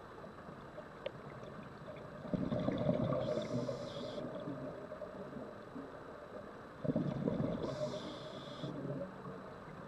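Scuba diver breathing through a regulator, heard underwater: two bursts of exhaled bubbles, about two seconds in and again about seven seconds in, each joined by a short high hiss, over a steady underwater hiss.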